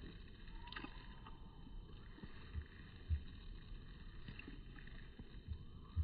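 Faint background noise with a few short, dull low thumps, two close together about two and a half to three seconds in and two more near the end.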